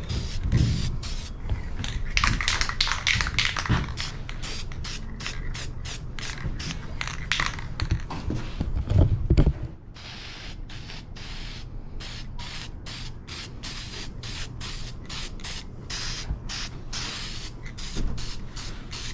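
Aerosol can of gloss black auto enamel spraying a light dusting coat in many short hissing bursts with brief gaps between them. The bursts are louder at first and turn quieter about ten seconds in.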